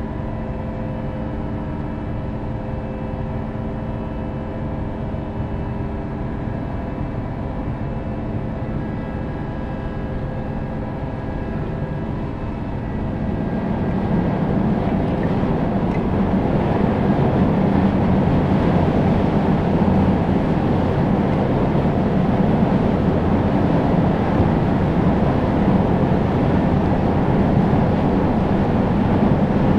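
Engines of the car ferry Kuniga running alongside the quay: a steady drone with several held hum tones, which about halfway through grows louder and rougher as the ship's machinery picks up.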